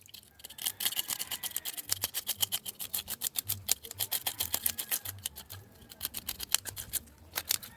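Whole fish being scaled: quick, repeated scraping strokes against the skin, several a second, as the scales are stripped off.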